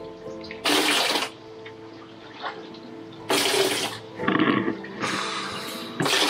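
Water washing in three loud surges, about two and a half seconds apart, over soft background music with held notes.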